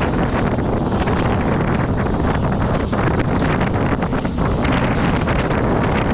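Wind buffeting the camera microphone while a mountain bike is ridden at speed on a sandy dirt trail, over a steady low rumble of tyres on dirt, with frequent small knocks and rattles from the bike over bumps.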